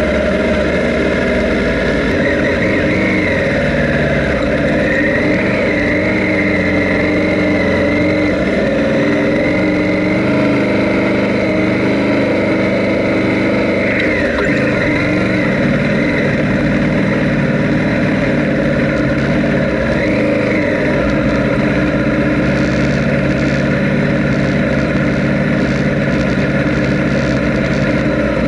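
Honda Africa Twin's parallel-twin engine running while riding off-road, its revs rising and falling.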